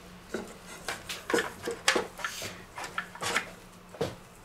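Raw meat mixture being scooped by gloved hands out of a stainless-steel mixing bowl into a metal loaf tin: a series of irregular light knocks and scrapes of metal, about one every half second.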